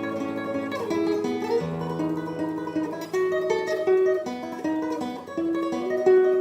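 Esteve model 8 nylon-string classical guitar played fingerstyle: a melody of single plucked notes moving step by step over held bass notes.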